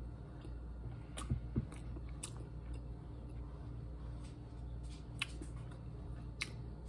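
Faint chewing of a bite of boiled egg, with a few soft mouth clicks, over a low steady hum.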